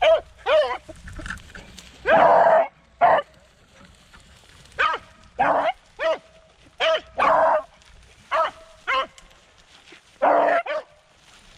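Beagles baying in a run of short calls that drop in pitch, with one longer bay about two seconds in: hounds giving voice on a rabbit's scent.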